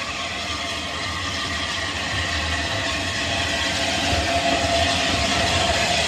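Hornby OO gauge model of the Bulleid pacific 21C123 'Blackmoor Vale' running past: the electric motor whines and the wheels roll on the rails. The sound grows louder as the locomotive draws near.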